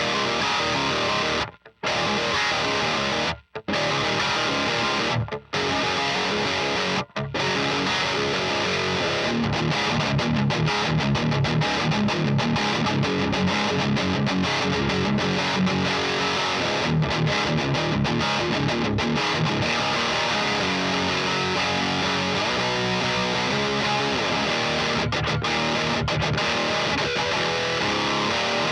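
High-gain distorted electric guitar played through a Diezel VH4 preamp pedal, boosted by an Abominable Hellmouth, into a Rivera Knucklehead Reverb's EL34 tube power section. In the first seconds the playing stops dead four times in short breaks. It then runs into a dense riff of fast repeated low notes.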